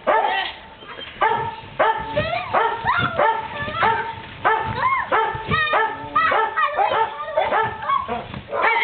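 A dog barking over and over in quick short yaps, about two to three a second without a pause.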